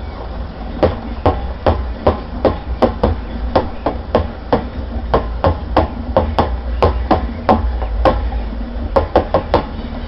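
Homemade concrete mixer running steadily while its tilted drum is knocked on repeatedly, about two to three sharp knocks a second, with a brief pause and then a quick run of knocks near the end.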